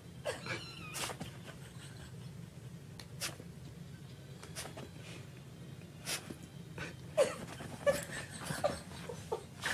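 A small dog and a kitten play-fighting: scattered scuffles and bumps with brief squeaky cries now and then, several in quick succession in the last few seconds.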